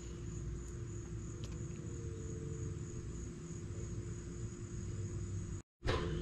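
A steady, high chorus of insects trilling, over a low rumble and a faint steady hum. The sound drops out for a moment near the end.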